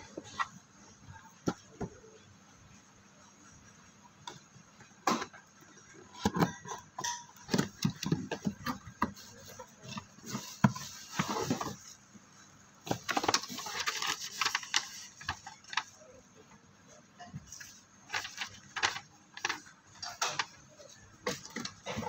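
Cardboard product box being handled and opened: scattered taps and knocks, with two longer bursts of cardboard scraping and rustling about halfway through.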